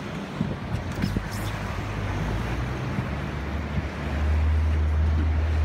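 Boat engine running steadily with a low hum that grows louder about three to four seconds in, over wind and water noise.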